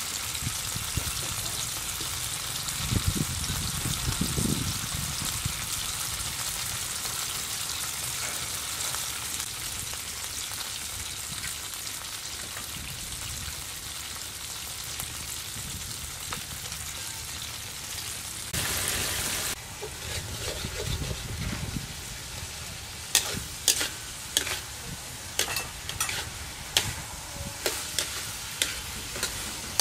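Dipping sauce sizzling in a steel wok while it is stirred. In the last third, a metal spatula clinks and scrapes against the wok again and again, one or two sharp clinks a second.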